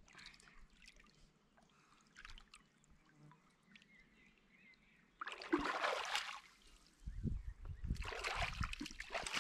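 Water splashing and trickling: a short loud splash about five seconds in, then low knocks and rustling near the end.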